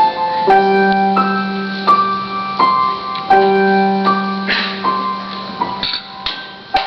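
Keyboard accompaniment in a piano sound, playing held chords struck one after another, then shorter detached notes near the end.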